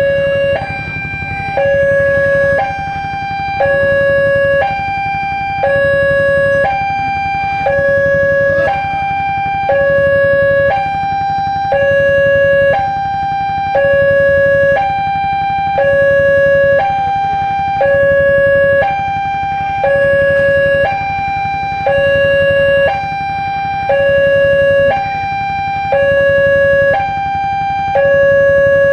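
Railway level crossing warning siren sounding, alternating steadily between a higher and a lower note, each held about a second, with no pause between them.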